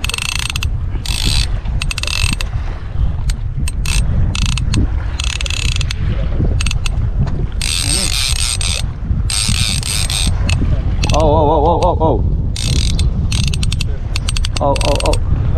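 Trolling reel's ratchet drag giving line in repeated short runs of rapid clicking as a hooked fish pulls line off, over a steady low rumble.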